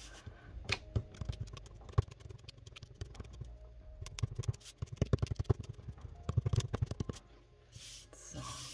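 Kneaded eraser and fingertips rubbing and dabbing pencil lines off drawing paper on a table: runs of quick soft scrapes and taps, thickest in the second half, with one sharper knock about two seconds in.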